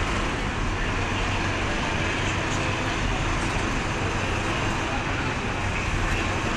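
Steady street traffic noise: vehicle engines running, with a car driving past close by near the end.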